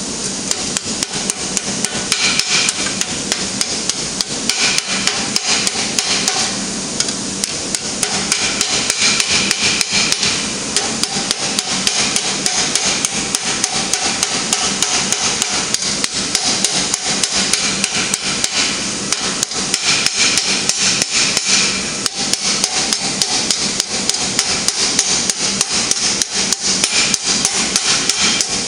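Hammer blows in a fast, even rhythm on a hot steel gauntlet plate held over a square steel stake, forging the plate to narrow its metacarpal extension.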